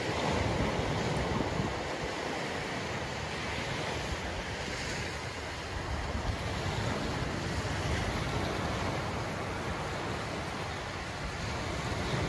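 Small waves breaking and washing up the beach in a steady surf, with wind buffeting the microphone in a low, uneven rumble.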